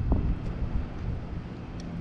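Wind buffeting the microphone: a steady low rumble, with a brief falling squeak just after the start.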